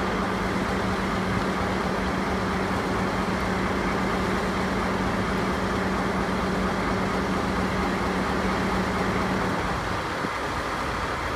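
A DD16 diesel locomotive standing and idling with a steady engine hum. About nine and a half seconds in, a steady low tone in the hum drops out while the engine noise carries on.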